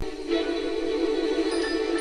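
Music: a sustained, steady chord that sets in right at the start and holds without change.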